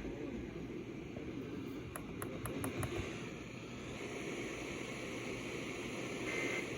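Hiss and static from an FM radio on a weak station, with a few faint clicks two to three seconds in. Near the end a short burst of EAS SAME data tones, a buzzy two-tone digital chirp, starts coming through the static.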